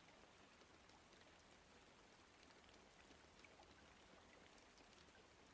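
Faint recorded rain: a steady hiss with scattered small drop ticks.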